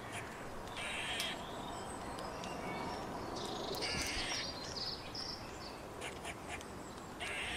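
Three short harsh animal calls, about three seconds apart, with small birds chirping faintly in between over a steady outdoor background.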